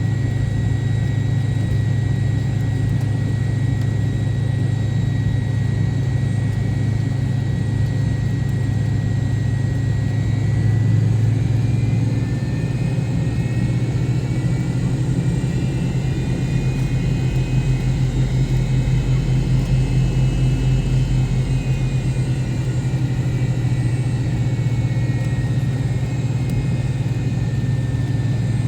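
MD-88 engines heard from inside the cabin, running steadily at low power: a constant low drone with a thin high whine. About eleven seconds in the whine shifts in pitch and a wavering higher whine joins it as the engine power changes.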